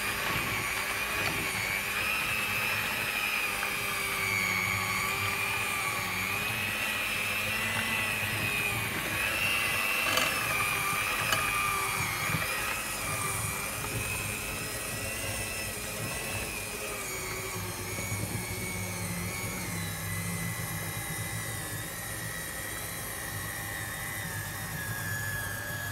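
Electric hand mixer running continuously, its beaters churning a thick batter of eggs, flour, diced pancetta and cheese. The motor's steady whine slowly drops in pitch.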